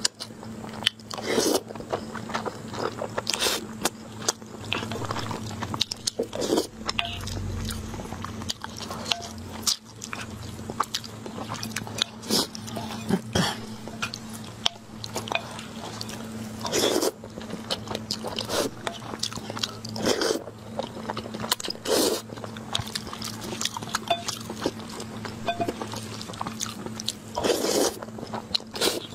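Close-miked eating of noodles: wet chewing and mouth clicks, broken every few seconds by a louder slurp of noodles, over a steady low hum.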